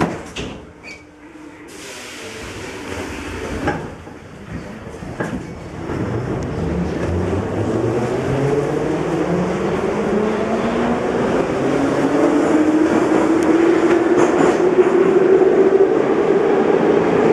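Em-501/Ema-502 metro train pulling away from a station, heard inside the car. A few knocks come in the first seconds, then the traction motors' whine climbs steadily in pitch and grows louder as the train accelerates.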